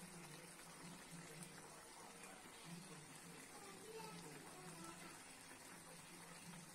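Chicken curry simmering faintly in a metal kadai on a gas burner: a steady low bubbling hiss.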